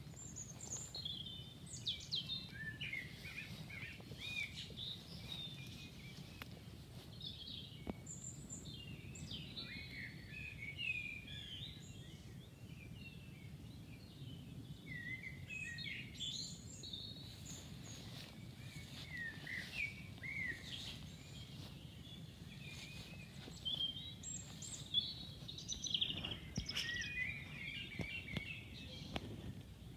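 Birdsong: small birds chirping and warbling in quick overlapping phrases, over a steady low rumble of outdoor background noise.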